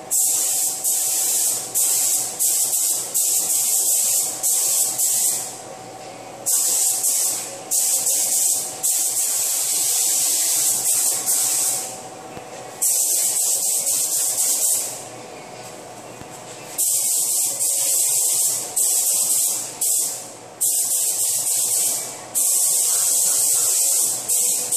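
Compressed-air gravity-feed paint spray gun hissing in bursts of a few seconds, cutting off and starting again as the trigger is released and pulled between passes while spraying base coat.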